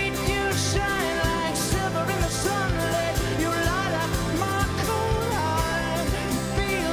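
A live rock band playing: a male lead singer over strummed acoustic guitars, electric guitar, bass and drums, with frequent cymbal crashes.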